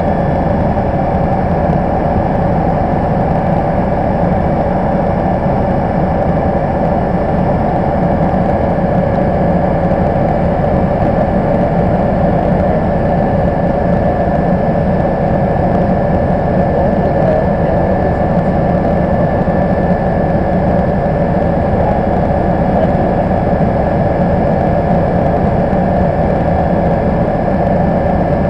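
MBB Bo 105 twin-turbine helicopter in flight, heard from inside the cabin: a steady, loud drone of engines and rotor with a steady whine over it.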